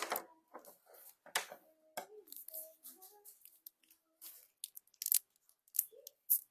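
Hands handling plastic packaging and toy modelling clay: scattered crinkles, taps and small clicks.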